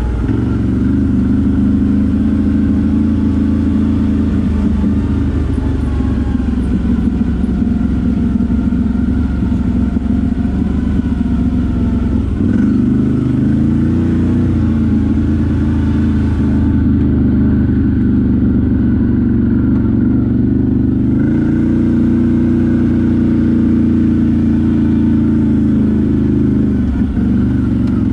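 ATV engine running continuously while riding, its revs holding fairly steady with small rises and falls and a shift about halfway through.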